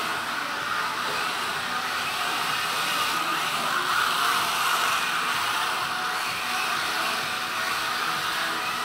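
Several Kyosho Mini-Z RC cars running on a drift track: a steady whir of their small electric motors and tyres on the track surface, swelling slightly around four seconds in.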